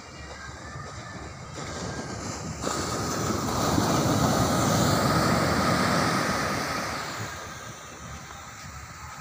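Ocean surf breaking on a sandy beach: the wash steps up suddenly about three seconds in, swells to its loudest a second or two later as a wave breaks and runs up the sand, then fades away.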